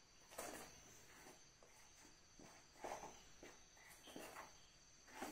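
Faint scraping of a spoon stirring dry gram flour in a stainless steel bowl, a few soft strokes spread a second or more apart.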